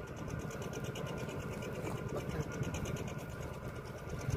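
A fishing boat's inboard engine running steadily, with a rapid, even clatter over a low rumble.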